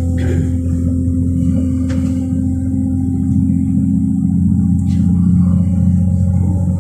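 Class 197 diesel multiple unit's engine droning steadily under power, heard from on board the moving train, with a couple of faint clicks.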